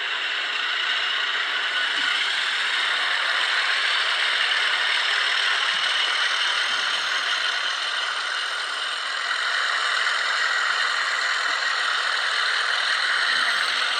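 Early DCC sound decoder in an N gauge model British Rail Class 37 diesel locomotive playing its engine running sound through a tiny onboard speaker: a steady, thin, hissy drone with no bass, dipping slightly about nine seconds in. This is the early-decoder running sound that the owner finds poor and off-putting.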